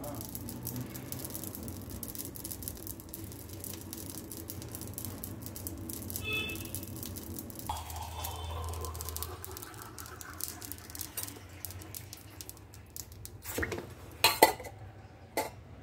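Steady hiss of a gas burner with faint crackling as cumin seeds roast in a clay diya. Near the end come a few sharp clinks of steel dishes.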